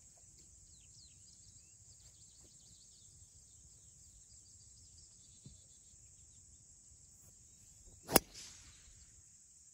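Driver clubhead striking a teed golf ball once: a single sharp crack about eight seconds in, followed by a brief fainter whoosh.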